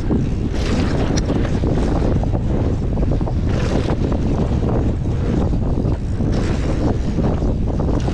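Wind buffeting an action camera's microphone while riding a mountain bike down a dirt trail, over the steady rumble of the tyres and irregular knocks and rattles from the bike.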